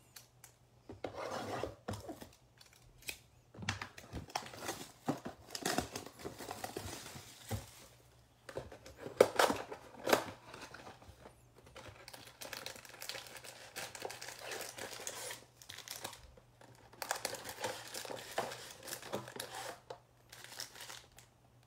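Cardboard trading-card mega box being torn open by hand and its foil-wrapped card packs pulled out, with the crinkle of the pack wrappers. Irregular rips and rustles, the loudest two about nine and ten seconds in.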